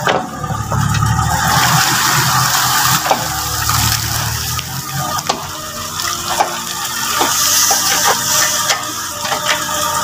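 Yanmar mini excavator's diesel engine running while the bucket scoops mud and water from a flooded pond edge, with water pouring and splashing off the bucket and scattered knocks.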